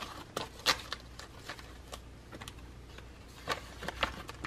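Paper banknotes being counted and handled by hand: a scattered series of crisp flicks and clicks, the loudest about two-thirds of a second in.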